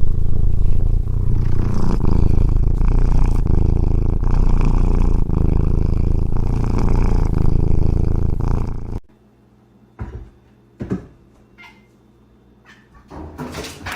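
A cat making a loud, low, continuous sound for about nine seconds, which cuts off suddenly; a few brief knocks follow.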